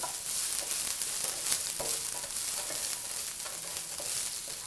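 Minced garlic and ginger sizzling in hot oil in a wok, stirred with a wooden spatula that scrapes and taps against the pan now and then.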